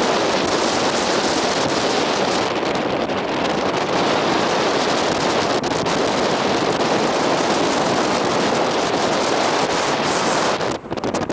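Wind blowing on the microphone, a loud steady rush that dips and becomes gusty near the end.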